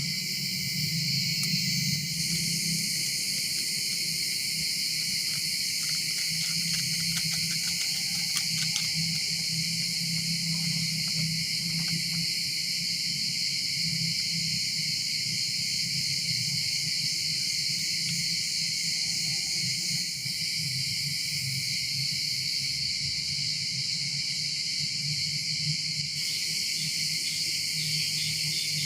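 Steady chorus of insects, crickets or cicadas, a continuous high-pitched buzzing, with a faint low hum beneath.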